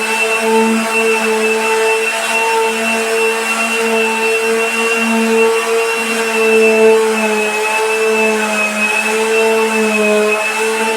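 Electric sander running steadily on a floor, a loud motor whine over the scratch of sanding; its pitch sags slightly about eight seconds in and then recovers.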